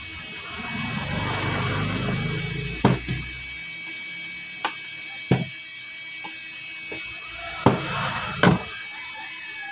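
Handling noise at a workbench: a low rustling rumble for the first few seconds as the TV circuit board is moved, then sharp clicks and knocks, about nine in all and some in quick pairs, as the board and a hand tool are handled.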